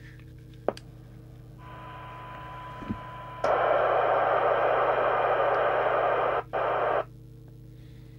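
CB radio receiver audio from the speaker of an SMC Oscar 1. A faint steady test tone with hiss comes up, then loud receiver hiss for about three and a half seconds as the squelch is opened. After a brief drop, the hiss cuts off suddenly as the squelch closes. A low hum sits underneath throughout.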